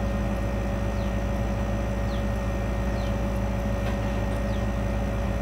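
Steady mechanical hum with a constant whine, with faint short high chirps about once a second.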